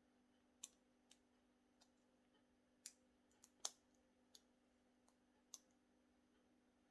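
Small, sharp, irregular clicks of a lock pick and tension wrench working the pin stack inside a large brass Abus 82/90 shutter padlock during single pin picking, about nine in all, the loudest about three and a half seconds in. A faint steady hum lies underneath.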